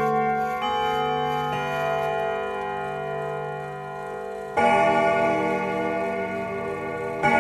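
Grandfather clock chiming: bell tones ring on and overlap, with new notes joining early on and two louder strikes in the second half.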